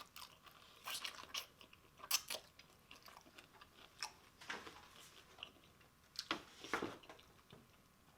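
Close-up biting and chewing of fried chicken wings: irregular short bites and chewing, with louder clusters about a second in, two seconds in, and between six and seven seconds.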